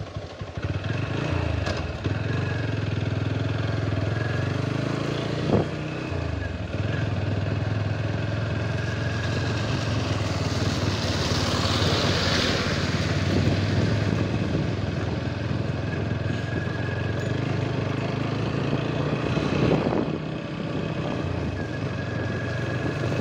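Motorcycle engine running under way, its pitch shifting a few times with throttle and gear changes, over wind and tyre noise on a wet road. A broad rush of noise swells around the middle.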